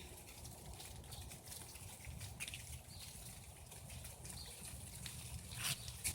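Frosted leaves falling and landing on leaf litter: a scatter of light, irregular ticks and rustles, with the sharpest couple of ticks near the end.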